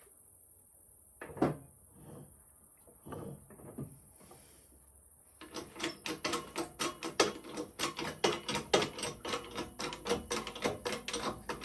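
Metal clicking and knocking at a hand-operated hydraulic shop press used to press clip lacing into a round-baler belt: a few separate knocks as the belt and clips are set in place, then from about halfway a fast, even run of about six sharp clicks a second that stops suddenly.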